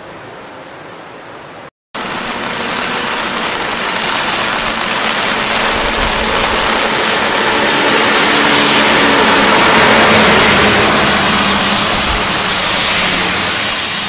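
A truck driving past on a rain-soaked road, its tyre hiss and engine swelling to a peak about ten seconds in and then fading. Under it is the steady rush of rain and flood water. The sound cuts out briefly about two seconds in.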